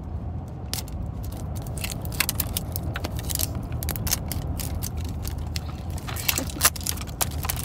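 Crinkly plastic wrapping on an LOL Surprise ball crackling as it is peeled and unwound by hand, in many quick irregular crackles, over a steady low hum.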